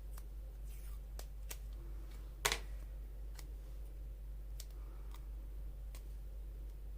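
Light clicks and taps of craft supplies being handled on a tabletop, with one sharper click about two and a half seconds in, over a low steady hum.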